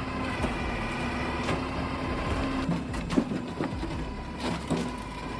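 Firewood processor running with a steady mechanical hum, with several sharp knocks spread through it.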